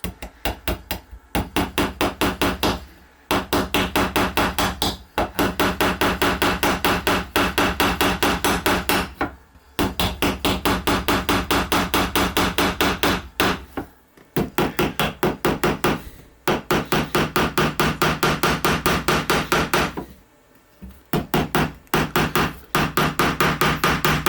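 A tool knocking rapidly and evenly, about seven strikes a second, in runs of a few seconds broken by brief pauses, over a steady low hum.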